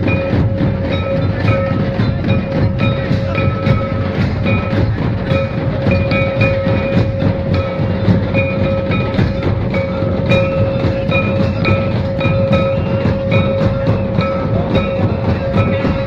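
Santali traditional dance music: fast, dense drumming under a steady held tone, with a short high melodic figure repeating in brief notes.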